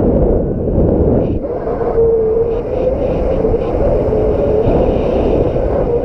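Strong wind buffeting the microphone: a heavy, steady rumble with a faint wavering whistle-like tone running through it.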